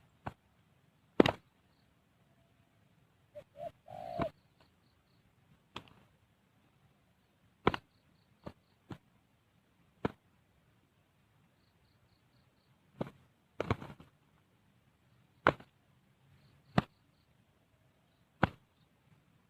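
About a dozen sharp taps and knocks at irregular intervals, with a short faint low tone about four seconds in.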